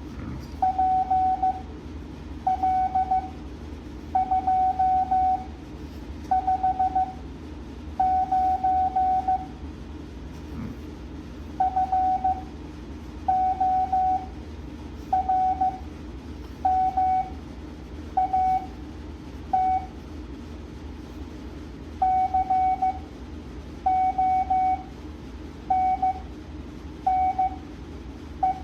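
Morse code practice tone at 7.5 words per minute: a single steady beep keyed on and off in dots and dashes, sent as letters with pauses between them, over a steady low hum.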